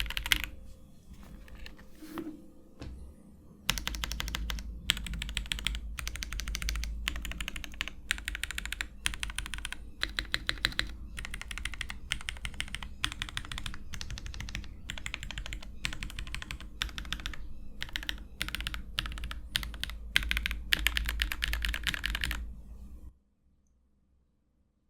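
Continuous typing on a CIY GAS67 gasket-mount mechanical keyboard fitted with lubed-and-filmed Epsilon switches and DMK keycaps: rapid, dense keystroke clicks in bursts. The typing eases off briefly near the start, then picks up again and stops abruptly shortly before the end.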